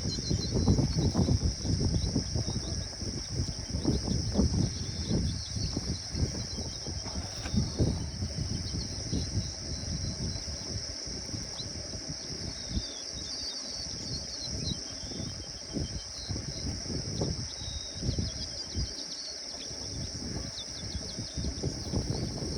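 A steady high-pitched insect chorus with scattered bird chirps over it, and wind buffeting the microphone as a low rumble, heavier in the first half.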